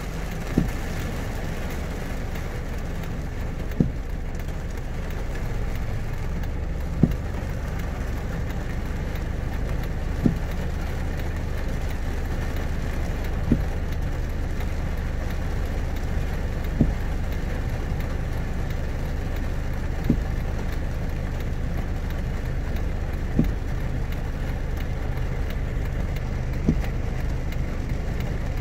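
A car engine idling steadily, heard from inside the cabin. A short soft knock repeats evenly about every three seconds.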